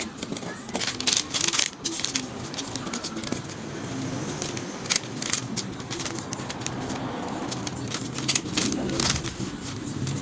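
A MAX stapler and a sheet of paper being handled: scattered sharp clicks and knocks of the stapler's parts, bunched about a second in, around five seconds and near the end, with the rustle of paper.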